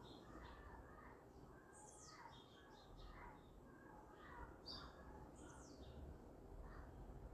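Faint birdsong: a string of short, quick chirps, some high and thin, some lower, over a quiet room tone.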